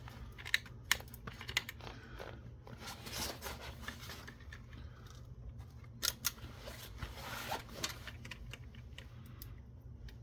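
Hands taking apart an LCD display assembly: a few sharp clicks in the first two seconds, then two spells of scraping and crinkling, about three seconds in and again around six to eight seconds, over a steady low hum.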